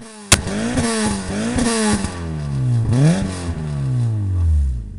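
Peugeot 106 Rallye 1.6 8-valve four-cylinder through a Sebring rear silencer, blipped several times with a sharp crack at the start and pops as the revs fall. The revs drop back to idle near the end.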